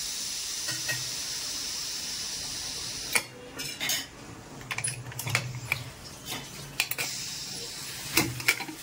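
Steam hissing steadily out of a pressure cooker's vent while a slotted steel spoon lifts its whistle weight to let the pressure off. About three seconds in the hiss drops away and the spoon clinks several times against the weight and lid, and the hiss briefly comes back near the end.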